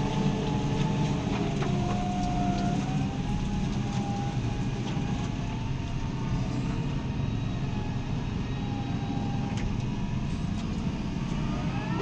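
Fendt tractor's diesel engine running steadily under load while ploughing, heard inside the cab, with a faint wavering whine above the drone.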